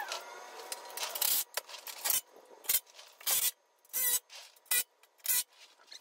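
A run of short rasping, scraping noises, roughly one every half second, from work under the van as the aluminium skid plate is fitted.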